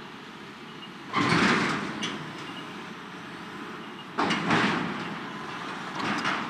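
Hitachi hydraulic excavator crushing a steel shipping container: the bucket forces the corrugated steel walls to buckle and scrape twice, about a second in and again about four seconds in. Each crunch lasts about a second over the excavator's steadily running diesel engine.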